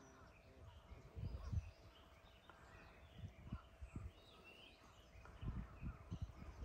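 Quiet outdoor ambience with faint, scattered bird chirps and a few soft low thumps, one group about a second and a half in and more near the end.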